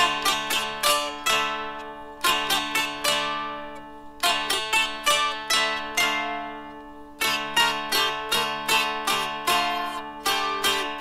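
Solo dulcimer, a fretted drone zither, plucked and strummed: quick melody notes over steady droning strings, in phrases that ring out and fade, with brief lulls about two, four and seven seconds in.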